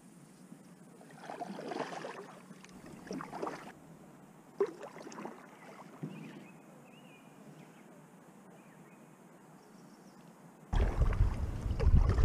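Water on a packraft: short, irregular splashes and drips against the inflatable hull and paddle. About eleven seconds in, a much louder low rumble cuts in abruptly as paddling resumes.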